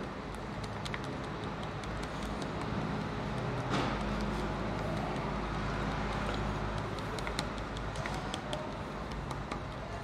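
Steady road traffic noise, with a brief louder swell about four seconds in and faint scattered small clicks throughout.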